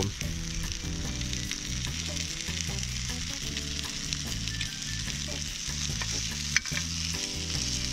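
Sausages and onion sizzling in a small frying pan over a portable gas cooker, a steady frying hiss, with one sharp tap late on.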